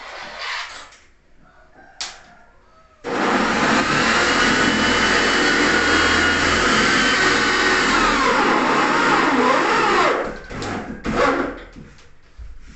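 A handheld electric power tool starts abruptly about three seconds in and runs loud and steady for about seven seconds. Its pitch then falls as the motor winds down. A few brief knocks and clatter come before and after it.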